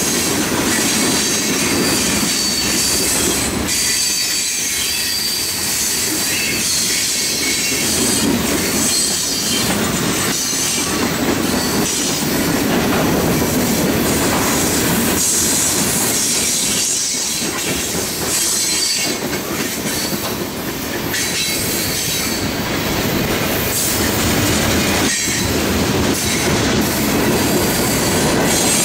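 Freight cars of a mixed manifest train rolling past: a steady rumble and clatter of steel wheels on rail, with a thin high wheel squeal running over it and occasional sharp clanks.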